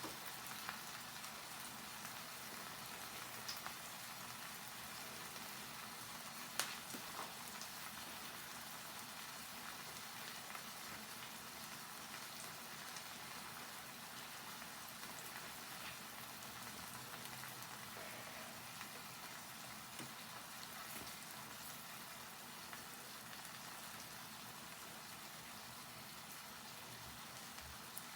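Salmon frying in a pan: a faint, steady sizzle with scattered small pops, one sharper pop about six and a half seconds in.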